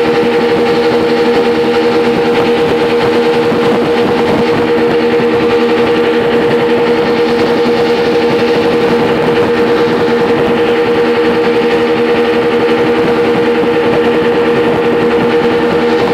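Twin Yamaha 75 hp outboard motors running steadily at cruising speed, an even engine drone held at one pitch throughout, over the rush of water and spray from the wake.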